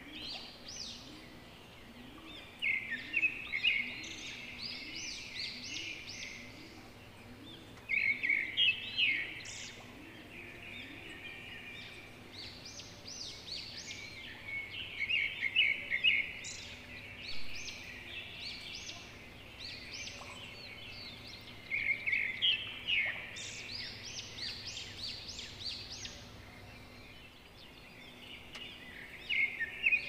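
Birds chirping in clusters of rapid, high, squeaky notes, each cluster a second or two long, coming five times about every six or seven seconds over steady background noise.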